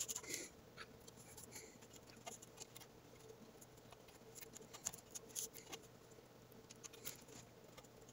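Faint rustling and light scattered ticks of paracord strands being handled and drawn through a hole in a wooden walking stick.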